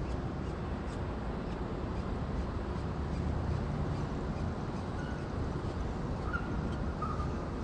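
Steady low rumble and hiss of background noise on a nest-box microphone, with a few faint short high calls in the last couple of seconds.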